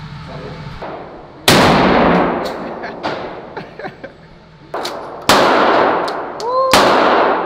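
Shotgun blasts in an indoor firing range: three loud shots, about 1.5, 4 and 1.5 seconds apart, each followed by a long echoing tail. Fainter sharp cracks fall between them.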